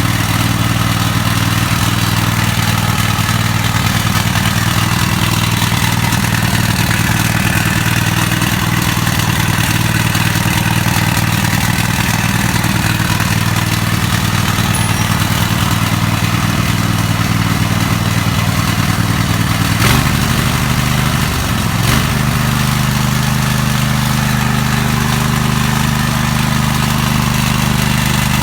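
Lawn mower engine running steadily, just fired up on a freshly replaced head gasket. About twenty seconds in there is a sharp click and the engine note shifts, then settles again to an even run a couple of seconds later.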